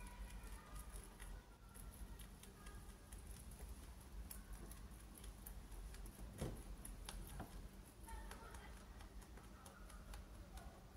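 Young rabbit chewing hay: quick, faint crunching clicks, with one louder bump a little past the middle.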